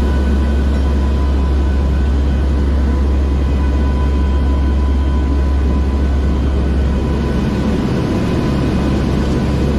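Steady cabin drone of a hurricane hunter's four-engine turboprop aircraft in flight: a loud, deep hum with a few steady whining tones above it.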